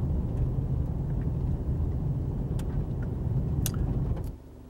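In-cabin road noise of an Isuzu MU-X driving on a dirt track: a steady low rumble of tyres and engine, with a few sharp ticks. It cuts off abruptly near the end, leaving a faint hum.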